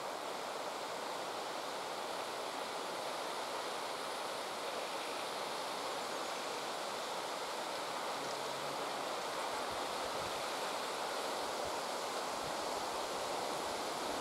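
Steady, even rushing outdoor ambience with no distinct calls or events.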